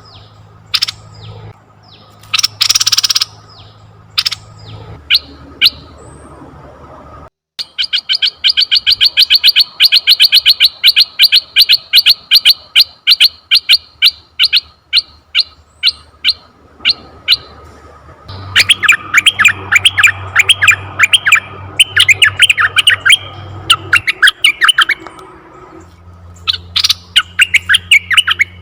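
Asian red-eyed bulbul calling: fast runs of short, chattering notes at about ten a second, each run lasting several seconds, with a short burst near the end.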